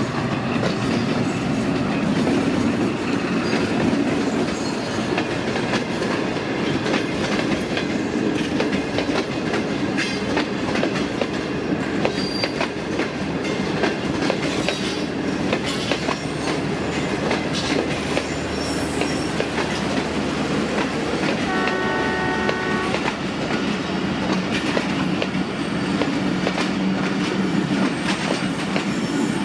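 A Pakistan Railways express train hauled by a ZCU-20 (GE U20C) diesel-electric locomotive passes close by: first the locomotive's engine, then the coaches rolling past with a steady clickety-clack of wheels over rail joints. One train horn blast of about a second and a half, a little past the middle.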